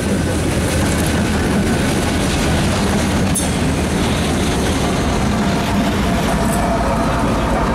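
Three diesel locomotives running light and passing close by, led by an EMD SD40-2 with a GE CW40-8 and a GE ES44AC behind: a steady, loud engine rumble mixed with the rolling of steel wheels on rail. A single sharp click comes a little over three seconds in.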